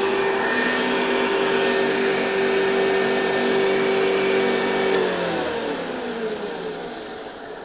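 Hoover Convertible 704 upright vacuum cleaner running with a steady, even hum. About five seconds in there is a click and the motor winds down, its pitch falling as it slows.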